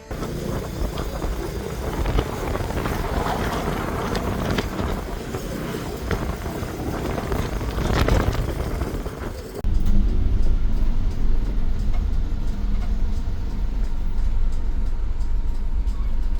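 A road vehicle running, a steady rumble of engine and road noise. About ten seconds in it cuts abruptly to a deeper, louder rumble.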